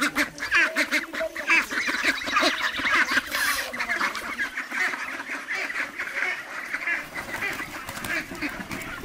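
A flock of domestic ducks quacking, with many short calls overlapping continuously.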